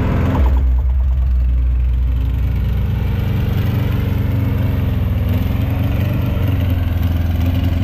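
Lowered Volkswagen Beetle's engine running at low revs as the car rolls slowly past and away, a steady deep note that grows heavier about half a second in.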